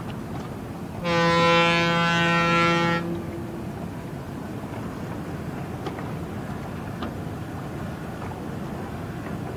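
A ship's horn sounds one steady blast of about two seconds, with a brief echo trailing after it, over a steady background rumble.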